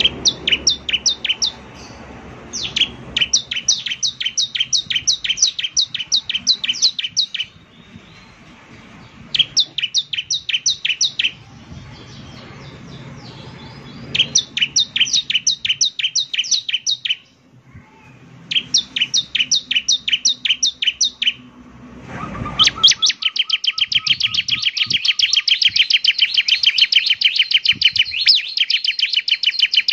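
Bar-winged prinia (ciblek) singing: phrases of rapid repeated high chips, each a second or two long, with short pauses between them. About two-thirds of the way in, the phrases give way to one long, faster, unbroken trill.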